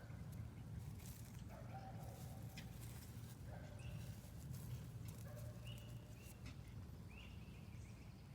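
An animal calling over and over, a short flat-pitched call about once every two seconds, with a few faint clicks and a low steady hum underneath.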